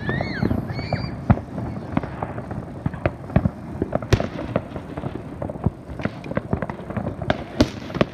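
Fireworks going off: a rapid, irregular run of bangs and crackling pops, with sharper, louder reports about four seconds in and again near the end.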